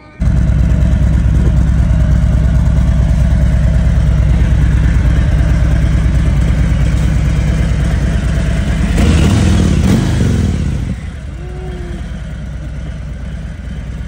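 Harley-Davidson Road Glide's V-twin engine running loud and steady. It is revved up and back down about nine seconds in, then settles to a quieter idle.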